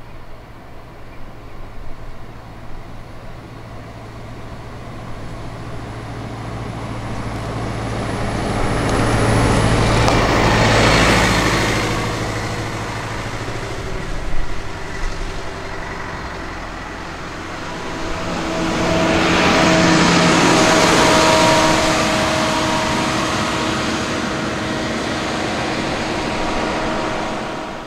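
Buses driving past one after the other. The engine and road noise swells to a peak about ten seconds in as the first goes by. A second, with a steady engine note, builds from about eighteen seconds and stays loud until near the end.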